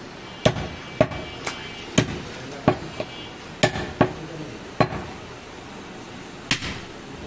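A heavy butcher's knife chops through a leg of goat mutton onto a wooden log chopping block, about nine sharp chops. They come about every half second at first, then more spaced out.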